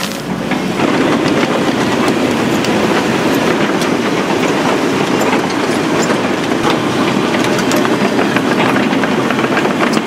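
Heavy construction machinery running with a steady, dense rattling clatter.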